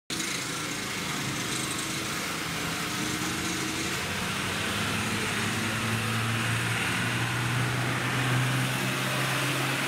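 Street traffic with small motorbike engines running. A steady low engine hum grows stronger about six seconds in.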